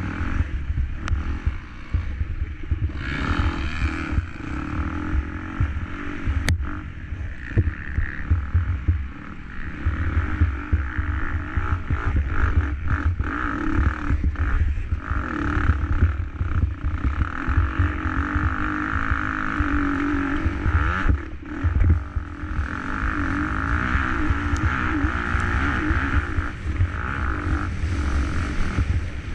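KTM 250 SX-F motocross bike's single-cylinder four-stroke engine revving hard, its pitch climbing and dropping with every throttle change. A heavy, fluttering wind rumble on the microphone runs under it.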